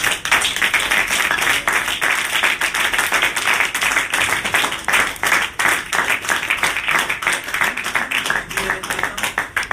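Audience applauding, a dense patter of many separate hand claps that stops near the end.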